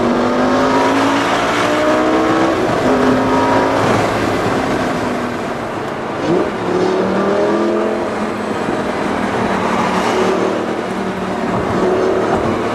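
Lamborghini Gallardo's V10 engine pulling hard through the gears, heard from inside the cabin: the pitch climbs, drops at each upshift and climbs again, several times over.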